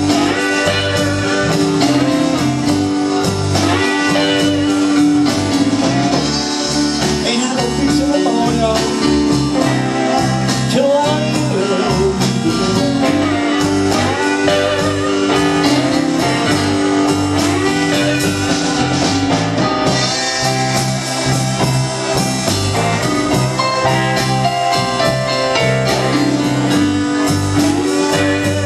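Live blues band playing a slow blues: electric guitar, bass, keyboards and drums, with a guitar or vocal line bending in pitch over a steady rhythm section.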